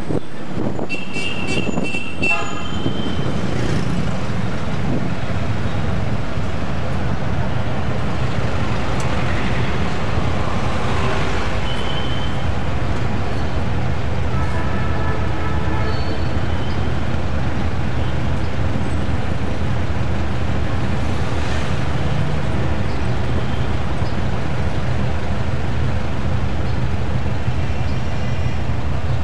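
City traffic heard from inside a moving taxi: a steady low engine and road hum, with vehicle horns tooting several times, about a second in, again near twelve seconds and around fifteen seconds.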